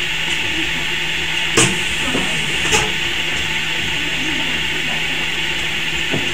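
Bench-top soldering machine running with a steady hiss and a low hum, with sharp metallic clicks from the tongs and board about a second and a half in, again near three seconds, and once more near the end.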